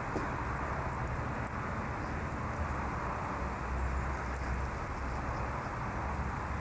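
Steady outdoor background noise: an even hiss with a low rumble underneath, unchanging throughout.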